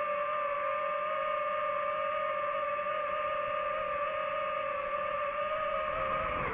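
DJI FPV drone's motors and propellers whining at a steady pitch, the pitch starting to drop right at the end as the motors slow down.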